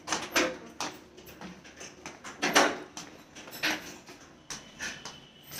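Several scattered knocks and clicks, the loudest about two and a half seconds in.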